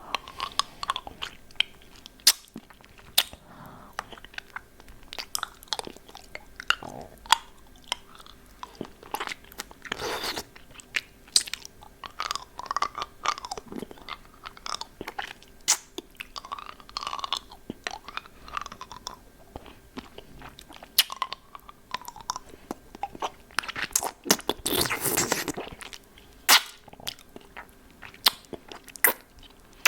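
Close-miked mouth sounds of eating a hard-candy lollipop: irregular sharp clicks and crunches of the candy against the teeth, with wet sucking and licking in between. There is a longer, denser crunching stretch about four-fifths of the way through.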